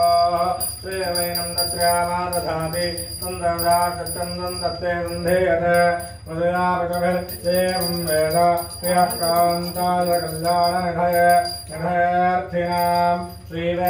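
Aarti song: a devotional melody sung in phrases about a second long, over a steady ringing bell.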